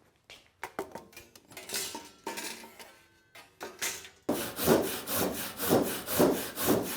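Wooden and metal knocks and clinks of tools being handled, then from about four seconds in a thick, stiff-bladed Japanese handsaw cutting timber in steady strokes, about two a second.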